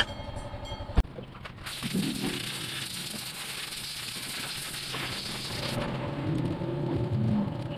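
A sharp click about a second in, then a steady hiss that starts and stops abruptly, lasting about four seconds, over a low rumble.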